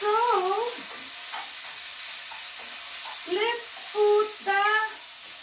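Bacon sizzling steadily in a frying pan as it is stirred. A few short hummed notes from a voice sound over it, one at the start and a few more after about three seconds.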